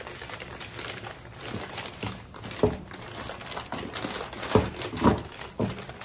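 Paper crinkling and rustling as an item is unwrapped by hand from crumpled white packing paper, with a few louder crackles in the second half.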